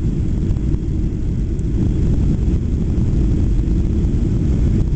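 Steady low rumble inside the passenger cabin of a Boeing 737-800 in flight, from its CFM56-7B turbofan engines and the air rushing past the fuselage.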